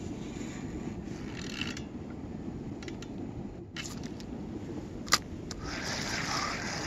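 Wind buffeting the microphone as a steady low rumble, with a single sharp click about five seconds in. Near the end a spinning reel is wound in, adding a soft hiss.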